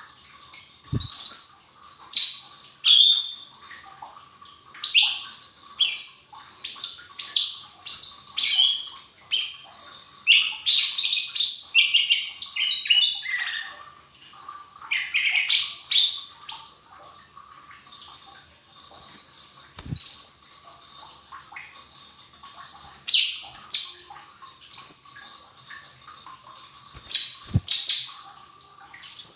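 Lesser green leafbird (mini cucak ijo) calling: loud, sharp chirps and quick sweeping whistled notes. A dense rapid run comes about halfway through, and the calls thin to single chirps every few seconds later on. A faint steady high tone runs underneath.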